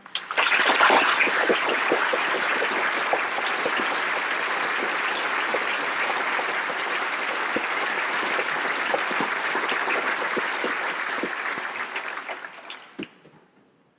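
Theatre audience applauding a ballet dancer, breaking out at the start, holding steady, and dying away near the end.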